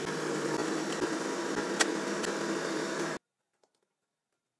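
Electric countertop blender running steadily, pureeing cabbage with water, with one sharp click partway through; the motor noise stops abruptly about three seconds in.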